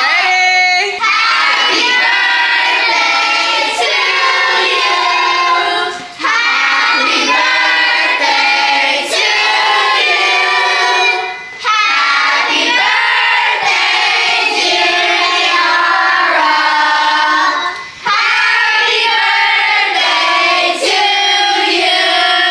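A group of children singing together, loud and sustained, with short breaks between phrases.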